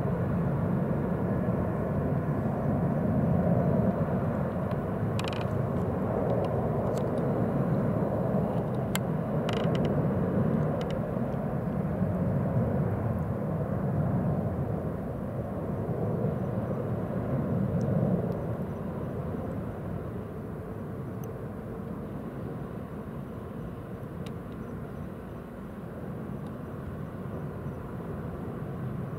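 Jet airliner engines rumbling with a deep, steady roar, which drops off after about 18 seconds as the aircraft moves away.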